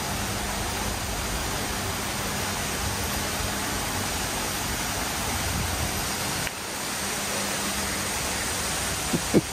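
Steady rushing noise with no clear pitch. Its deep rumble falls away about two-thirds of the way through.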